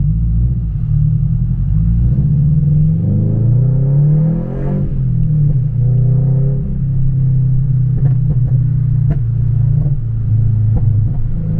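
Scion FR-S 2.0-litre flat-four engine on a stage 2 pops tune, revved up to a peak about four and a half seconds in and let fall back. A few sharp exhaust pops follow as the engine settles near the end.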